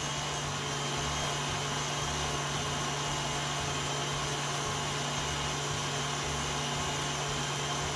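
Stand mixer running steadily at a raised speed, its wire whisk beating eggs into a foam on the way to soft peaks. A steady motor hum with a high whine over it.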